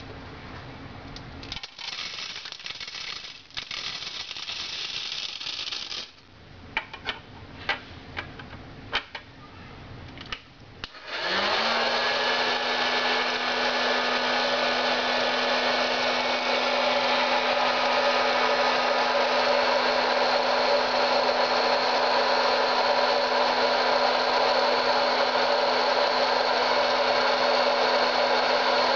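Rattling and a string of sharp clicks, then about eleven seconds in a hot-air popcorn maker is switched on. Its blower motor spins up quickly and runs steadily with a loud rush of air, the loudest sound here.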